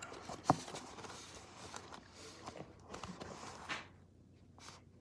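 Faint rustling and handling noises with scattered light clicks, the sharpest about half a second in.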